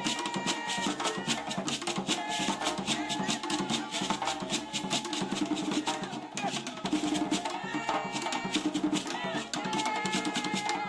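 Traditional dance music played on drums with shakers and wooden clicks in a fast, dense rhythm, with voices singing held notes over it.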